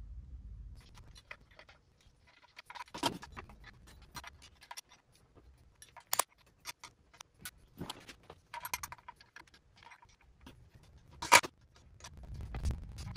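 Metal hand tools clicking and clinking as a wrench and a slotted socket tool are handled and worked at the open engine case. There are scattered light ticks and a few sharp metallic clicks, the loudest about eleven seconds in.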